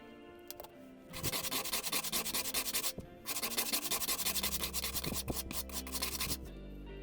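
Hand sanding of a wooden handle scale: quick back-and-forth rubbing strokes that start about a second in, pause briefly about three seconds in, and then carry on.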